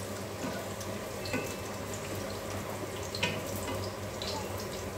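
Chopped garlic sizzling gently in oil in an aluminium wok as it is stirred with a wooden spatula, with a couple of light knocks of the spatula against the pan. The garlic is being lightly sautéed, not yet browned.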